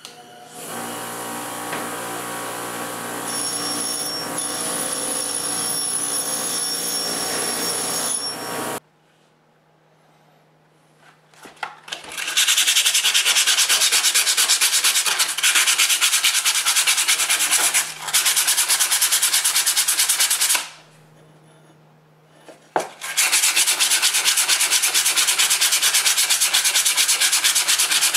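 A bench grinder with a wire wheel is switched on and runs with a steady hum and whine for about eight seconds, then stops abruptly. After a short quiet gap, sandpaper is rubbed by hand in rapid back-and-forth strokes over the steel blade of an old caulking iron, a loud rhythmic scratching that takes one short pause, sanding off rust.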